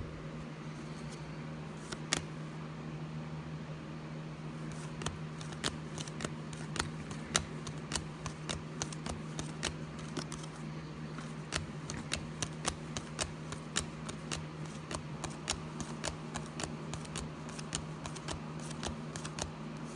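Football trading cards being flicked one at a time off a stack in the hand, each card giving a short crisp snap. The snaps come a couple a second from about five seconds in, over a steady low hum.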